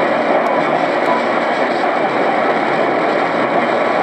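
Steady static from a JRC NRD-545 shortwave receiver tuned to 6925 kHz in AM mode. No clear voice or music stands out of the static.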